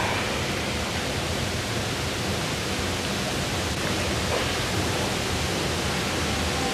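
Steady hiss of an old analog videotape recording, spread evenly from low to high pitches.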